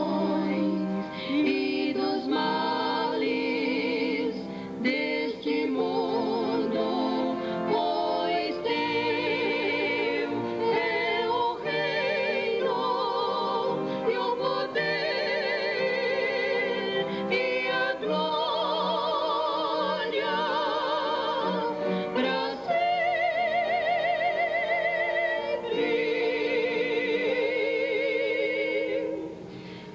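Three women singing a song together, their held notes carrying a strong vibrato. The singing breaks off briefly near the end.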